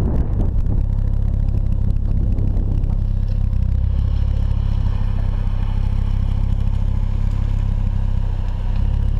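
Ford Focus ST mk2's turbocharged 2.5-litre five-cylinder engine idling, heard right at the exhaust tailpipe as a steady low drone.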